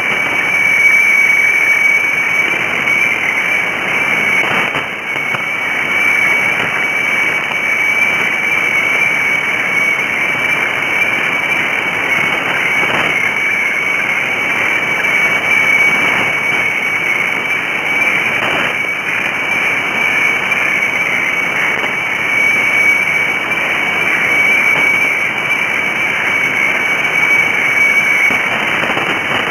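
Shortwave weather-fax (radiofax) signal from HSW64 Bangkok on 7395 kHz heard through a radio receiver: a steady high tone that wavers slightly, over a constant hiss of static.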